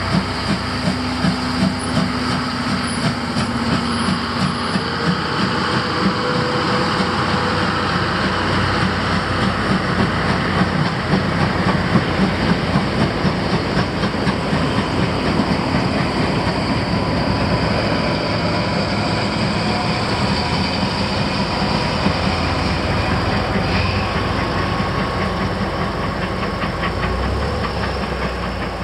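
Steam locomotive C11 325 chuffing in regular beats, about two a second, for the first few seconds. Then its train of passenger coaches rolls past with a steady rumble and wheel clatter on the rails.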